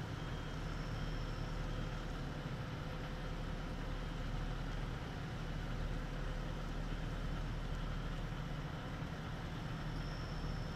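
Fire engine's engine running steadily, a continuous low rumble.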